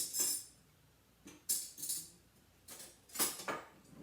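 Metal cutlery, a fork and spoon, clinking and jangling as they are handled: a bright jingle at the start, two more about a second and a half in, and another pair near three seconds in.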